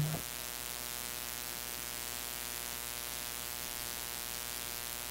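Steady electrical mains hum with static hiss from the audio equipment, heard once the last music note cuts off right at the start.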